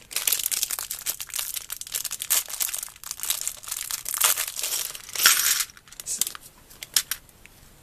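A clear plastic bag of Lego pieces crinkling as it is handled and rummaged through, with small plastic pieces clicking. The crinkling stops about six seconds in, leaving a few light clicks.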